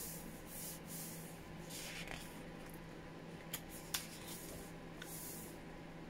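Paper pages of a paperback book being handled and turned by hand: soft rustling and sliding of paper, with two sharp little clicks about halfway through.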